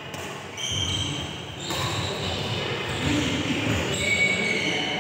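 Sports shoes squeaking on a badminton court mat as players shuffle and walk: several short, high squeaks, with the dull knock of footsteps underneath.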